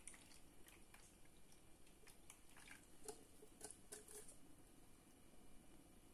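Faint drips and soft, wet clicks of boiled cherries and their syrup being poured from a china bowl through a mesh strainer, with a few light taps clustered in the middle.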